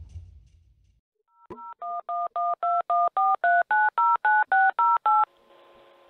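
Touch-tone telephone keypad dialing: a quick run of about a dozen two-tone beeps, one per key press at roughly three or four a second, starting about a second and a half in. It ends with a faint steady hum on the line.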